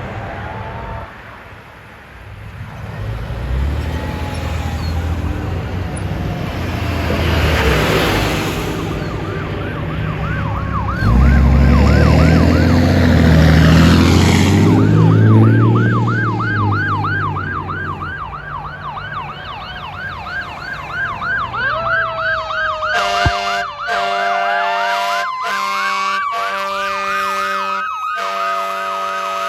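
Fire trucks going by on an emergency run: an electronic siren yelping fast up and down, long blasts of an air horn and the trucks' engines passing loudly midway, then a siren rising slowly in pitch near the end.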